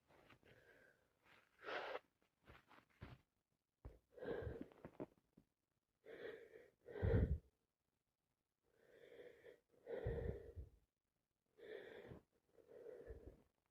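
A woman with a heavy cold making about a dozen short, noisy, congested breaths in irregular bursts, the loudest a little past the middle.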